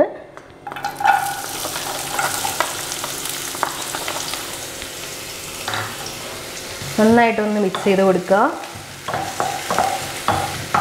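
Chopped onion hits hot oil in a nonstick kadai and starts sizzling about a second in. The frying hiss runs on and eases later, with scattered spits and crackles. A wooden spatula stirs the onion near the end.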